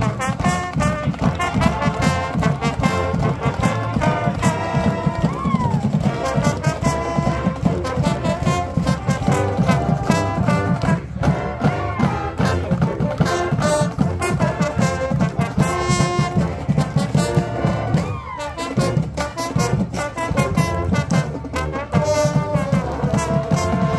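Marching band playing: brass, including sousaphones, over drumline and front-ensemble mallet percussion, with a steady driving beat and some sliding brass notes.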